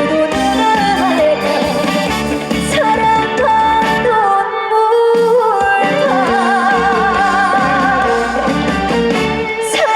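Live trot song with band accompaniment and a melody line, likely the female lead vocal, with long wavering held notes about two-thirds of the way through.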